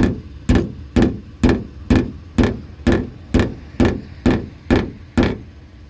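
A mallet tapping on the sheet-metal hood of a 1993 Ford F-350. There are about a dozen light, even blows, roughly two a second, each with a short ring from the panel, and they stop shortly before the end. The blows are knocking down a high spot that a dent pushed up, to level the metal for body filler.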